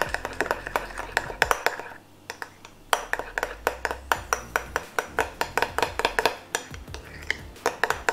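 Metal spoon stirring thick slime in a small glass bowl, clinking against the glass again and again, several times a second, with a short lull about two seconds in.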